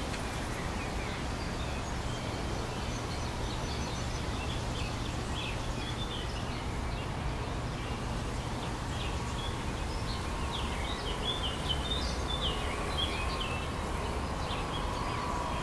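Small birds chirping in short calls over a steady low background hum; the chirps come mostly in the second half, with a faint steady whine also appearing then.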